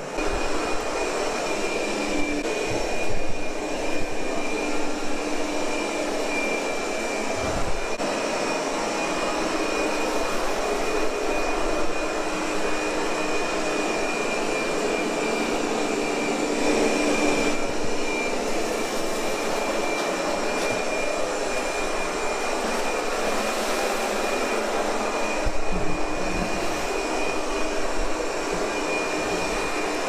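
Ultenic TS1 robot vacuum running steadily as it cleans carpet: an even whir of its suction fan and brushes, with a thin steady high-pitched whine over it.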